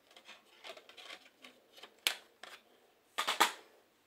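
Plastic CD jewel cases being handled: light rustling, a sharp click about two seconds in, and a louder clatter of clicks about three seconds in.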